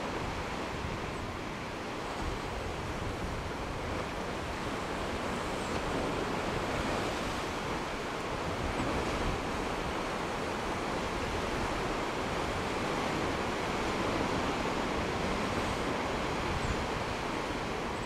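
Steady rush of ocean surf breaking against rocky sea cliffs, with wind on the microphone.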